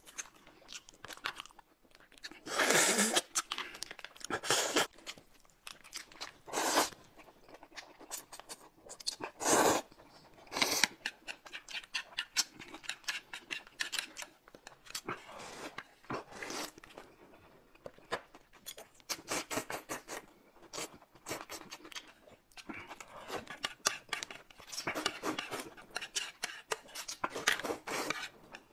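Close-miked mukbang eating sounds: chewing, slurping of noodles and the crinkle and tear of small plastic snack packets, in a dense run of small clicks broken by louder bursts every few seconds.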